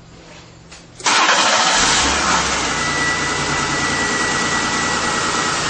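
Car engine being restarted after stalling: about a second in, it is cranked and catches, then runs steadily at a fast idle. A thin, steady high whistle sits over the running engine.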